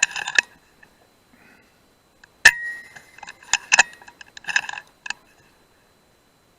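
Single shot from a .177 FX Dreamline PCP air rifle about two and a half seconds in: a sharp crack with a brief metallic ring. Light metallic clicks and clinks of the rifle's action being worked come just at the start and again in the two seconds after the shot.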